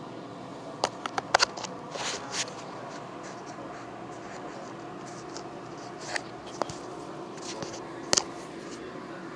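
Scattered clicks, taps and rustles of things being handled, the sharpest cluster about a second in, over a steady low hum.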